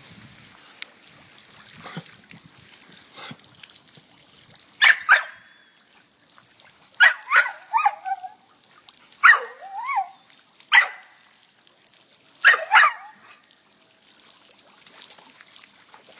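Pit bull barking in about five short bursts of one to three barks each, some barks sliding down and wavering in pitch at the end, over a faint trickle of running water.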